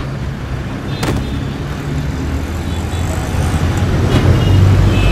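Road traffic noise: a steady low rumble of passing vehicles that grows louder toward the end, with a single sharp click about a second in.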